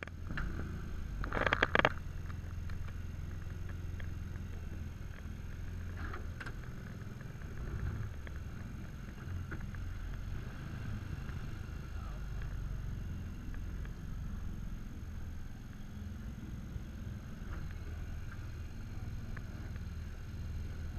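Small aluminium boat under way on a river: a steady low rumble, with a short, loud rattle about a second and a half in and a few faint knocks around six seconds.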